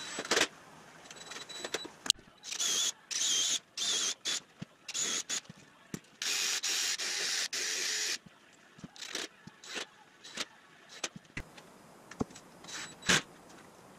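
Cordless drill driving screws into wooden strips on a plywood body buck, in several short runs of whining motor and then one longer run of about two seconds in the middle. Light knocks and clicks of wood being handled follow.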